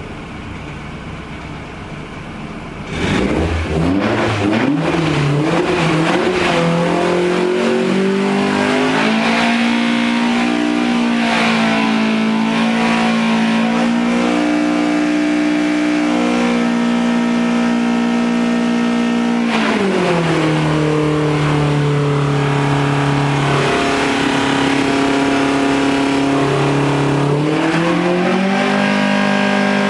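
2.5-litre Millington Diamond four-cylinder race engine running on a dynamometer through its rally car exhaust. About three seconds in it comes on load and its pitch climbs for several seconds, then holds steady at high revs, drops to a lower speed about twenty seconds in, and climbs again near the end.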